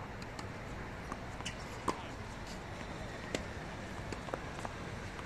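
Tennis balls struck by rackets and bouncing on a hard court: a string of short, sharp pops about half a second to a second apart, the loudest a little under two seconds in, over a steady background hum.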